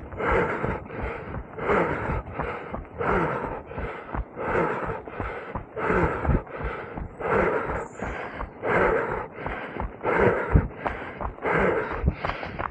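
A runner's hard, rhythmic breathing close to the microphone, about one breath every two-thirds of a second, with dull thumps underneath.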